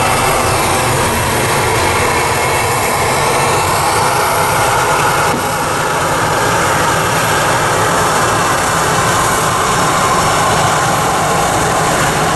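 Jet engines of a Boeing 737 running steadily as the airliner rolls along the runway, a constant loud whine and rush.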